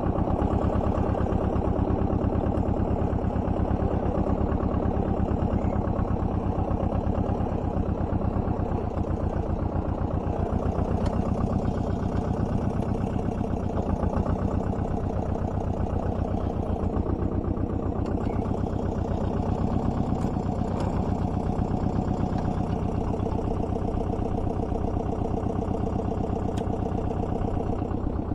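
Small tractor engine running steadily with an even, fast beat while it pulls a rear-mounted subsoiler through the soil.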